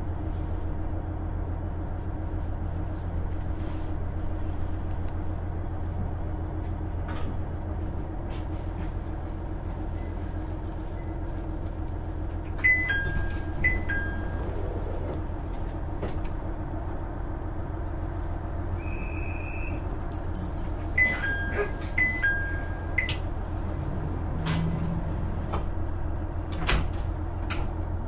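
KiHa 110 diesel railcar standing at a station with its diesel engine idling in a steady low hum. Twice, about halfway and again about three-quarters through, short clusters of two-note electronic chime tones sound with clicks and sliding-door noises. A brief beep comes between them.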